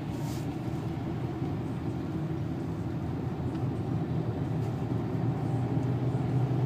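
Renault 2.0-litre turbo diesel engine running steadily, heard from inside the car's cabin, with tyre noise on a wet track; it grows a little louder near the end.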